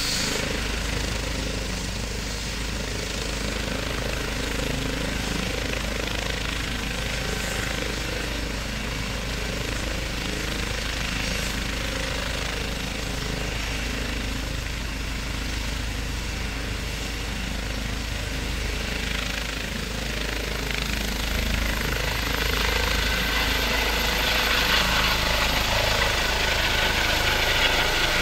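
Airbus H135 (EC 135 P2) rescue helicopter running on the ground with its main rotor turning: a steady deep rotor beat under turbine whine. In the last third it grows louder as it powers up and lifts off.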